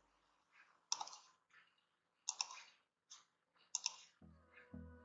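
Computer mouse clicking: three sharp, loud clicks about a second and a half apart, with fainter clicks between them. Background music with a steady beat starts near the end.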